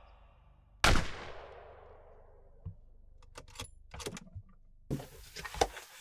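A single rifle shot from a .338 hunting rifle, a sharp crack about a second in with a long echoing tail. Several short clicks and knocks follow in the seconds after.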